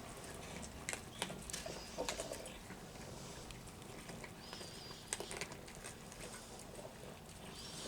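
Scattered light clicks and taps from cats moving about and at their food, with a short high chirp about four and a half seconds in.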